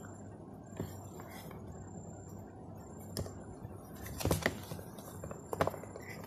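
A cardboard box being handled and turned over on a table: a few soft taps and rubs of fingers and box edges, the loudest about four seconds in and another shortly before the end, over a faint steady hum.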